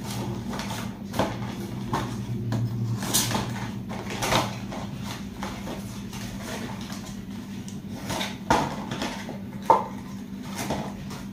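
Cardboard boxes of LED bulbs being handled and cut open with a knife: irregular scraping and rustling with sharp clicks and taps, the sharpest a little past the middle and near the end. A steady low hum runs underneath.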